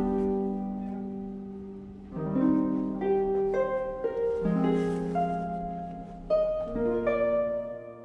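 Background music: a slow, gentle instrumental piece, with held chords that change about every two seconds and single melody notes over them.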